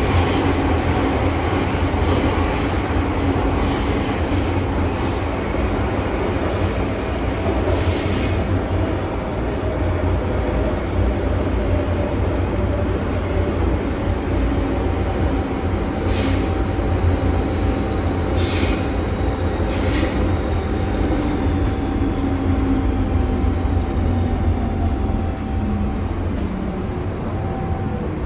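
MTR M-train electric metro car heard from inside while running: a steady low rumble of the wheels on the track, with brief high squeals from the wheels several times. In the second half a faint steady whine shows, with a fainter whine falling in pitch.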